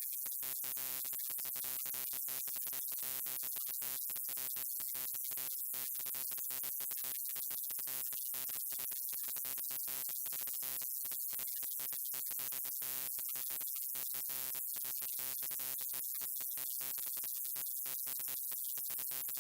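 Neon light buzzing: a steady electrical hum with many even overtones over a constant high hiss, stuttering with rapid irregular dropouts.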